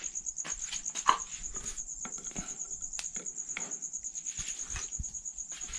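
An insect, likely a cricket, trilling steadily in a fast, even pulse at a high pitch. Scattered light knocks and handling noises come on top, the loudest about a second in.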